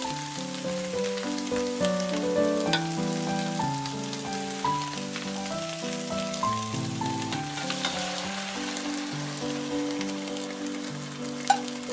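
Beef and napa cabbage sizzling in a frying pan as homemade sukiyaki sauce is poured in, under background music of held notes. A sharp click near the end.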